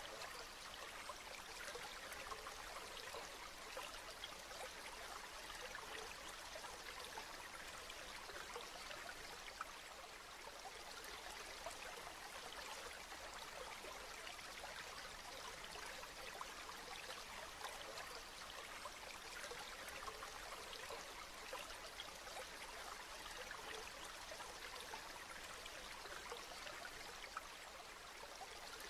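Steady rain falling, a dense even hiss of many small drop patters.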